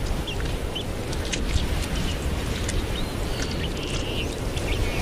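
Outdoor nature ambience: a steady low rumbling noise, with short high bird chirps and faint clicks scattered through it and one slightly longer chirp a little past the middle.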